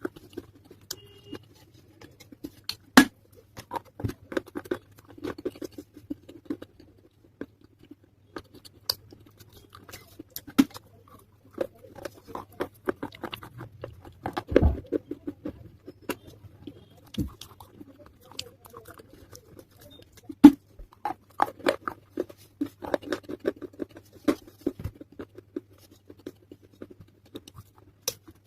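Close-miked chewing of wet, soaked pieces of a clay pot (matka): irregular sharp crunches mixed with softer moist chewing, with a couple of louder cracks, one about three seconds in and one past the middle.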